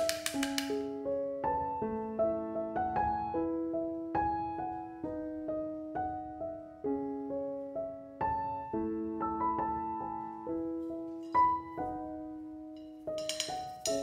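Background piano music: a slow melody of single notes that ring and fade one after another.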